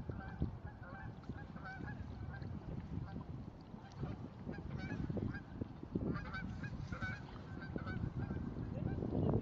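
A flock of waterfowl calling with many short, scattered honks, over a steady low rumble.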